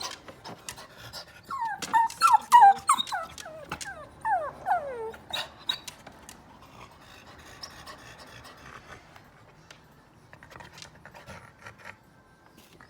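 Excited dog whining: a run of high whines that fall in pitch during the first few seconds, then panting with a few light clicks.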